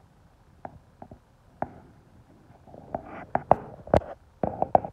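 A string of sharp knocks and clacks. A few come scattered early, then a quick, louder cluster follows about three seconds in.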